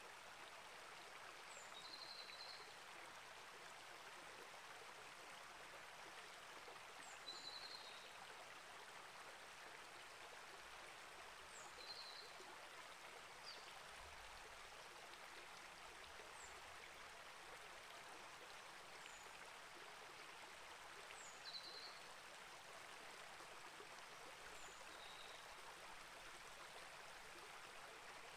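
Faint, steady rush of a small rainforest creek flowing over rocks, with short high bird chirps every few seconds.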